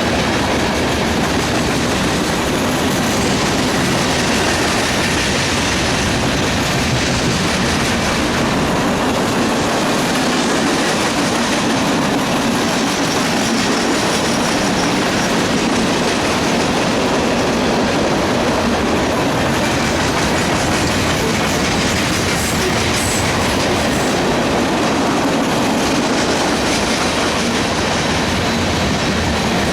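CSX mixed freight train rolling past, a steady, unbroken noise of freight cars' wheels running on the rails.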